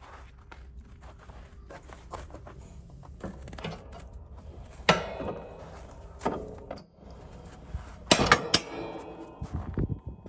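Metal clinking and clanking as a steel pin is handled in a snow plow's push-frame mount. Light clicks are scattered through, with a sharp ringing clank about five seconds in and a cluster of louder clanks around eight seconds.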